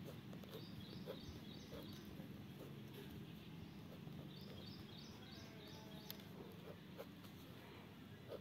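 Faint background with a small bird calling in two short runs of quick repeated high chirps, about a second in and again near the middle.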